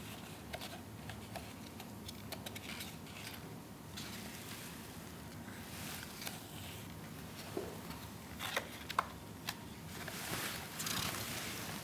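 Paper pages of a softcover photobook being handled and turned: faint rustling and light taps, with a few sharper ticks and a louder rustle near the end as a page corner is lifted.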